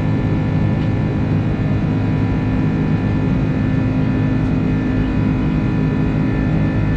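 Airbus A330 jet engines heard inside the passenger cabin: a steady drone and rush of air, with several steady tones over it.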